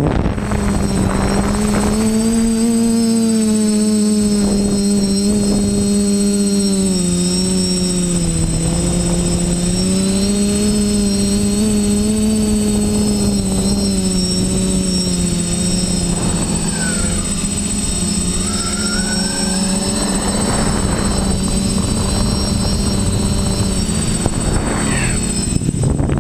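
TBS Discovery quadcopter's brushless motors and propellers running in flight, heard from the camera on board: a steady buzzing hum whose pitch rises and falls gently with throttle, over air rush, with a thin high whine held throughout.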